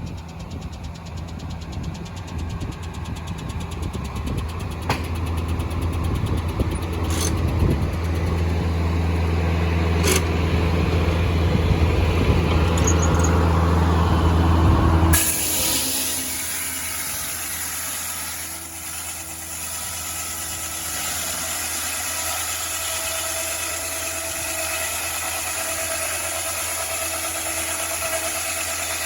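Engine-driven Foley Belsaw circular sawmill running, its engine sound building steadily, then about halfway through the blade bites into a pine log and a loud cutting hiss takes over and holds steady.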